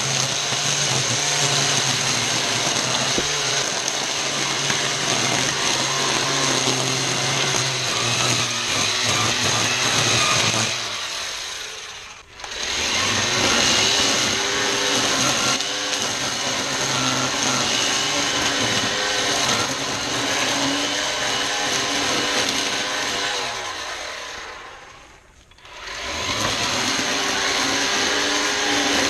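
ECHO 58-volt battery string trimmer running at full speed, cutting through tall weeds and grass, its pitch wavering as the load changes. Twice, about eleven seconds in and again about twenty-four seconds in, it winds down almost to a stop and then speeds back up.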